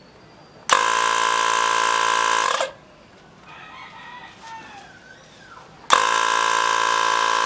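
INGCO portable auto air compressor running in two short bursts of about two seconds each, a steady buzzing drone that starts and stops abruptly, with a pause between the runs.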